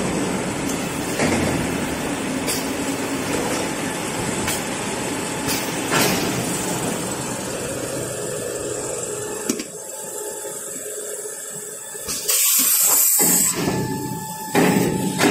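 Kitchen towel paper production line machinery running, a steady mechanical noise with a few sharp clicks. About twelve seconds in, a loud hiss lasts just over a second.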